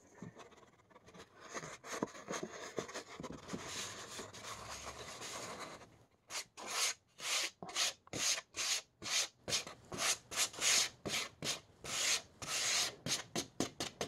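A hand rubbing and brushing fine sand off a sheet of paper into a scale's tray: a faint continuous scratchy rubbing at first, then about halfway in a run of short separate scraping strokes, two to three a second.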